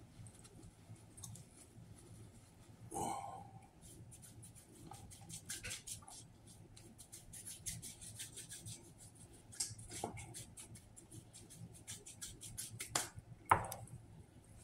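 Paper napkin crinkling and rustling as hands are wiped and rubbed together. It is a run of fine crackles, with a few louder rustles.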